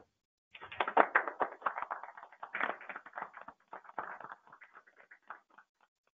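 Applause from a small group: dense hand claps that thin out after about four seconds and stop near the end.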